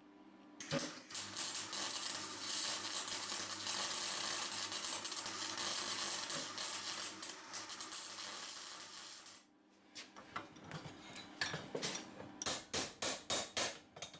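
Electric welding arc crackling and hissing steadily for about nine seconds as steel petals are tacked on, then cutting off. After that comes a series of hammer blows on the 2 mm mild steel petals, irregular at first and then about three a second near the end.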